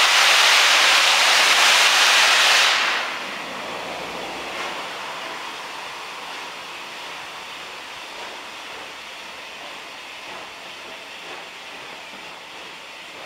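Loud steam hiss from a passing steam locomotive for about three seconds, then a sudden drop to a much fainter hiss that slowly fades as the carriages roll past.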